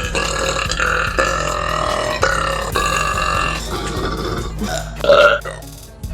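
A girl burping: long, drawn-out belches one after another, then a short, louder burp about five seconds in.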